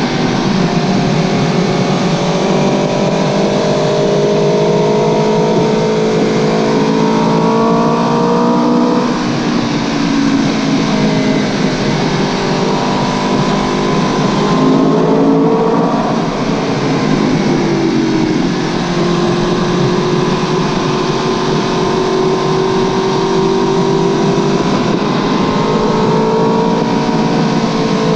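Aprilia Tuono V4 1100 Factory's V4 engine running through an Akrapovic exhaust while being ridden. The revs climb and fall several times, with a drop about a quarter-way in and another about halfway, then a steadier stretch before climbing again near the end.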